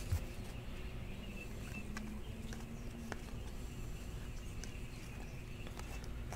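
Faint clicks and slides of stiff chrome-stock Panini Prizm baseball cards being set down and flipped through by hand, one slightly louder click about three seconds in, over a low steady hum.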